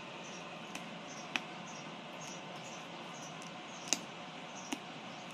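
A handful of short, sharp clicks and taps, about four in all and loudest about four seconds in, from a boxed tablet being handled and turned in the hands. Behind them a steady hiss with faint high chirps repeating about twice a second.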